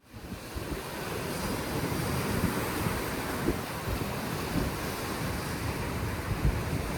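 Sea surf washing steadily on the shore, a continuous rushing hiss, with wind buffeting the microphone in irregular low thumps. It fades in over the first half second.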